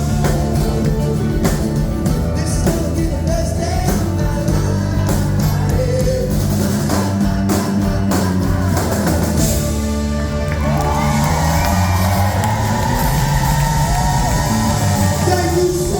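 Live pop-rock band with singing, drums, bass and a horn section, heard with a crowd in a large hall. About ten seconds in the drum beat drops away, leaving held notes and voices.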